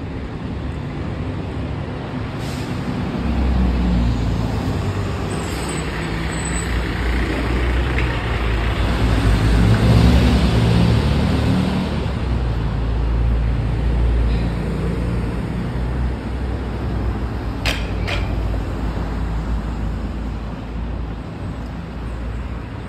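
Street traffic: a heavy road vehicle's engine running close by, growing louder to its peak about ten seconds in and then fading. Two brief sharp sounds come late on.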